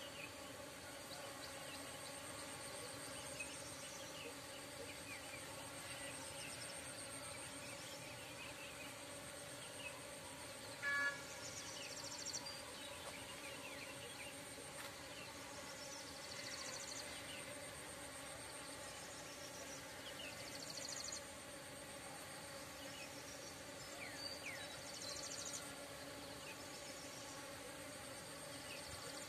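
Insect chorus chirring: a steady high-pitched trill with pulsing higher calls over a faint low hum, and a brief louder chirp about eleven seconds in.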